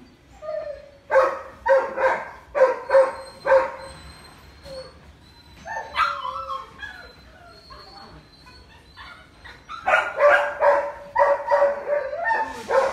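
Doberman barking in quick runs at a handler waving a flag: about six sharp barks in the first four seconds, a quieter stretch, then another run from about ten seconds in.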